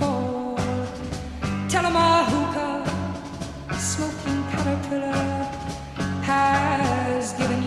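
Rock song with a steady drum beat and bass under a sung vocal line, with phrases about two seconds in and again near the end.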